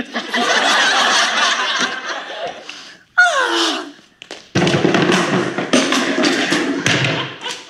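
People laughing, with a short break about four seconds in.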